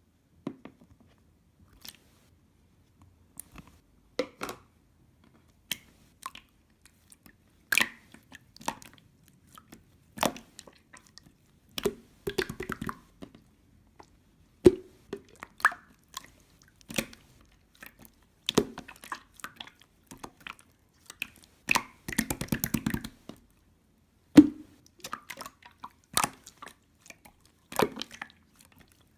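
Close-up crisp clicks and crunches at irregular intervals, with short quick rattling runs about twelve and twenty-two seconds in.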